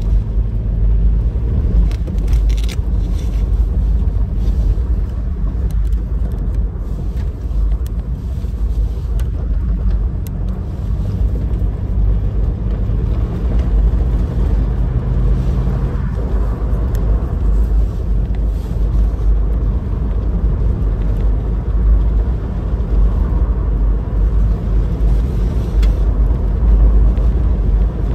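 Inside the cabin of a 2018 Toyota 4Runner driving fast on a dirt road: a steady low rumble of tyres and suspension over the unpaved surface, with scattered light knocks and rattles.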